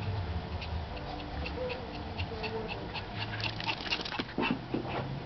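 Shih Tzus yipping and whimpering in play: a run of short, high yips that come thickest a little past the middle.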